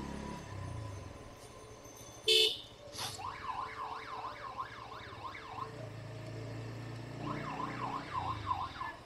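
Electronic hooter (emergency-style siren horn) fitted to a battery auto-rickshaw, warbling rapidly up and down at about three sweeps a second. It sounds in two bursts of a few seconds each, after a short loud blast a couple of seconds in. A motorcycle engine hums low underneath.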